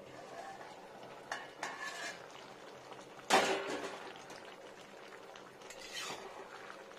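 Metal cookware handled on a pan of curry: a steel plate-lid is taken off the pan with a few light clinks, then one loud metallic clang about three seconds in. A metal spatula scrapes and clinks in the pan near the end.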